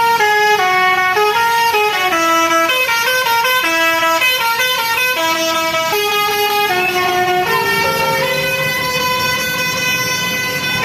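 Basuri telolet horn on a New Shantika bus playing a tune of quick stepped notes, then longer held notes in the second half.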